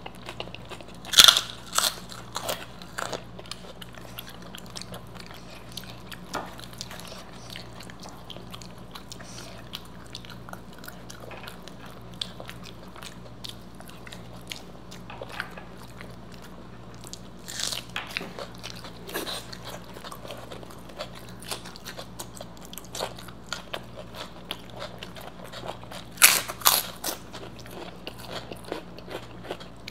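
Close-miked biting and chewing of crisp fried snacks: loud crunches about a second in, again around two-thirds of the way through, and a louder cluster near the end, with quieter chewing clicks between. A faint steady low hum runs underneath.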